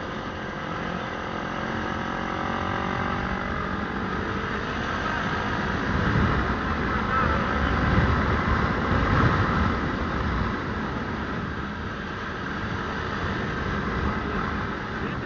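Honda CB motorcycle engine running under way, its pitch rising and falling with the throttle. Heavy wind rumble on the camera's microphone, loudest about six to ten seconds in.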